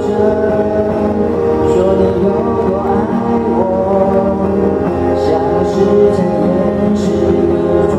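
Instrumental intro of a Mandarin pop song: sustained backing chords under a wavering melody line.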